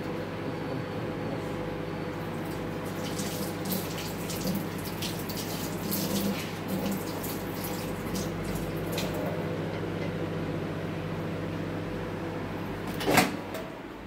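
Microwave oven running with a steady hum, with scattered light crackles and ticks from the pani puris puffing inside. About a second before the end, a sharp loud click as the door is opened, and the hum stops.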